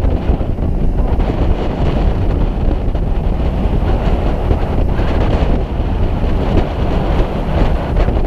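Wind blowing on the microphone over the steady low rumble of a boat's engine on open sea.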